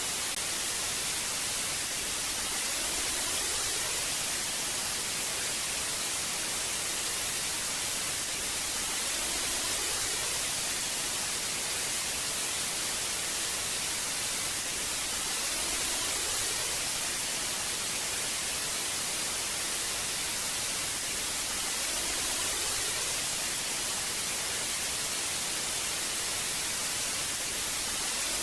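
Old TV static: a steady, even hiss of white noise, strongest in the high end, swelling slightly in loudness every six seconds or so.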